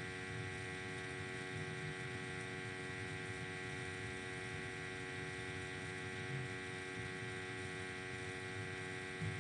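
Steady electrical hum made of many unchanging tones, over a faint low rumble.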